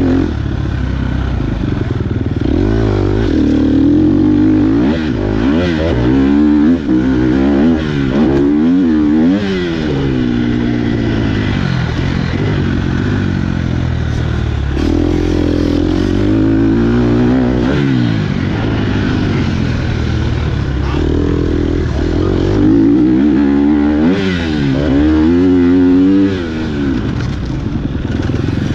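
Off-road racing motorcycles running hard, their engine pitch repeatedly climbing and falling as they accelerate, shift and back off.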